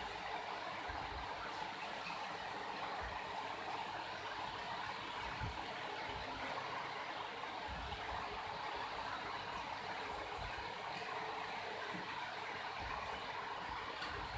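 Steady background noise, an even hiss with a few faint low thumps scattered through it; no sneeze or other distinct event stands out.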